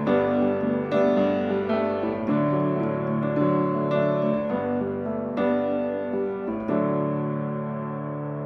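Instrumental outro of a folk song: chords struck roughly once a second and left to ring, the music slowly growing quieter.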